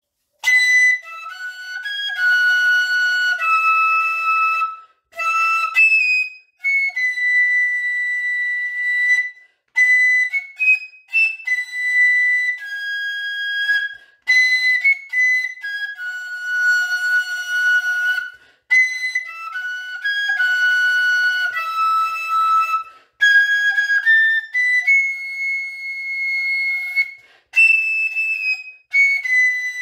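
A tin whistle playing a solo melody in the upper register, one note at a time, some notes held for a second or two, with short breaks between phrases.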